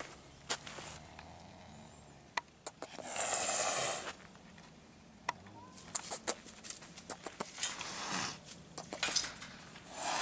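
A caged spotted wild-type cat hissing: one long hiss about three seconds in, with shorter hisses near eight seconds and at the end. Around them, crackles of feet on dry leaves.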